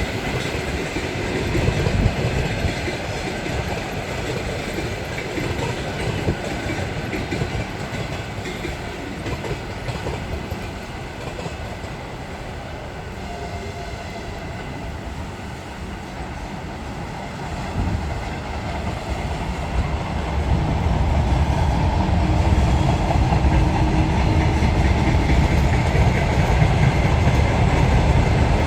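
Train hauled by a 2ES4K electric locomotive running past, its wagons' wheels clattering over the rail joints; a heavier, louder rumble builds about two-thirds of the way through.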